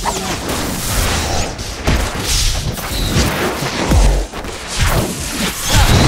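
Designed magic-spell sound effects: a dense run of whooshes, impacts and booms, with heavy low booms about two and four seconds in.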